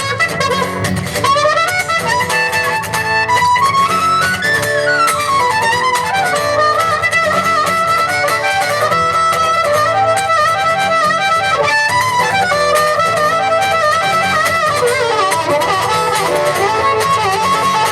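Live band playing an instrumental passage with a fiddle carrying a fast-moving melody over guitar accompaniment.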